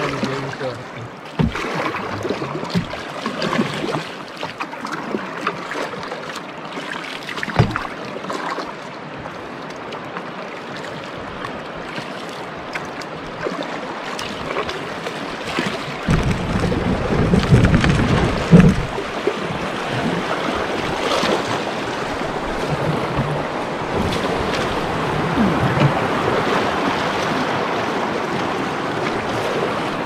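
Canoe being paddled downriver: paddle splashes with a couple of sharp knocks in the first half, then from about halfway the loud, steady rush of rapids around the hull, with gusts of wind buffeting the microphone just as the rapids begin.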